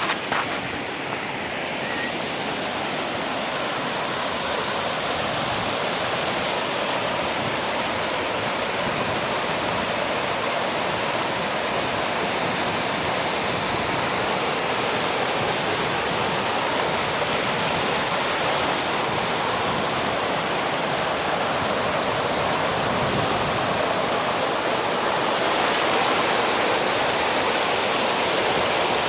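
Waterfall rushing in a steady, even roar of falling water that grows slightly louder toward the end. There is a short knock right at the start.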